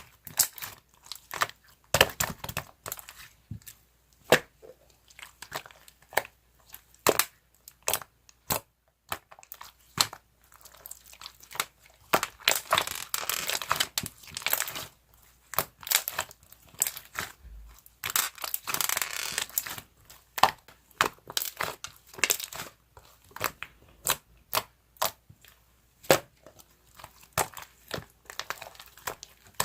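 Slime being squished, stretched and pressed by hand, giving a steady run of sharp pops and crackles as trapped air bursts. About twelve seconds in, and again near eighteen seconds, the crackling thickens into longer stretches.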